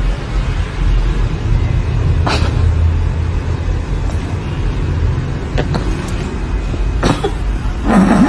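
Loud, steady rumbling noise with a hiss over it and a few faint clicks, louder for a moment near the end.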